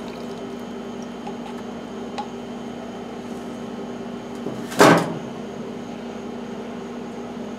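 A steady low mechanical hum runs throughout, with one short clunk about five seconds in as the mower's plastic fuel tank and a jar of drained fuel are handled on the workbench.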